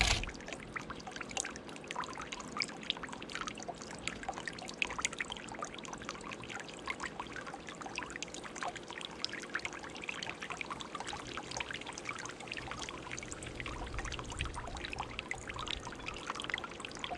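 Garden bowl fountain running with a steady trickle and splash of water. A single sharp thump right at the start comes as a squirrel lands on the bowl's rim.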